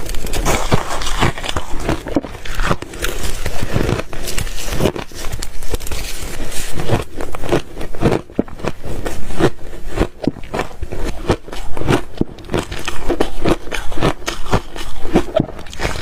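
Ice being bitten and chewed: a fast, irregular run of sharp crunches and crackles.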